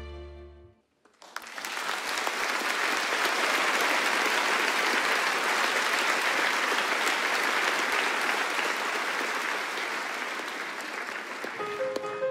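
The orchestra's last held chord fades out, and about a second in the audience breaks into steady applause. Near the end, a Petrof piano starts playing the next piece.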